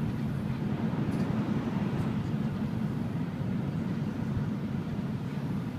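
Cabin noise inside an N700 Series Shinkansen running at speed: a steady, even rumble, strongest low down, with a fainter hiss above it.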